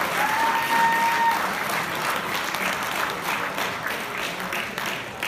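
Audience applauding, with a single whistle held for about a second near the start; the applause slowly dies down toward the end.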